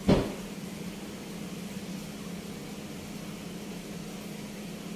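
A steady low machine hum with a single loud thump right at the start.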